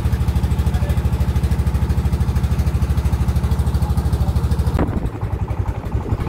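A wooden river boat's engine running steadily under way, a fast, even chugging. The sound dips and changes briefly about five seconds in.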